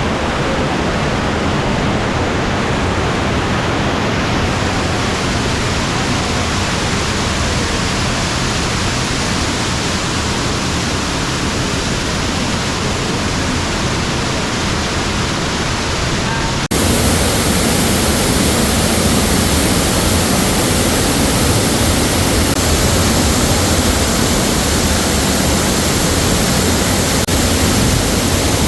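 Waterfall pouring onto rock, a loud, steady, unbroken rush of water. About two-thirds of the way through it cuts suddenly to a louder, brighter rush of the same falls.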